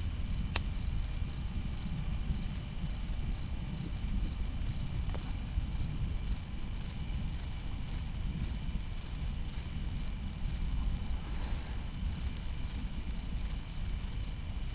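Night insects, crickets, chirping in a chorus: a steady high buzz with a regular chirp about two to three times a second, over a steady low rumble. A single sharp click about half a second in.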